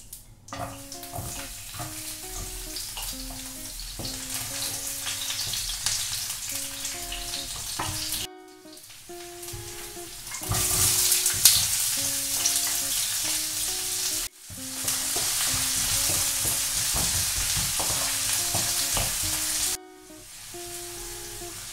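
Hot oil sizzling in a frying pan as garlic and then chopped onion fry and are stirred, loudest about halfway through. The sizzle cuts off and restarts abruptly three times, over light background music.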